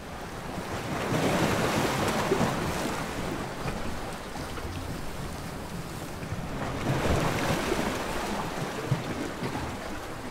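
Ocean waves washing, with wind. The rush swells about a second in and again around seven seconds.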